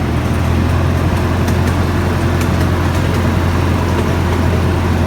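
A vehicle engine running steadily, giving a loud, even, low drone.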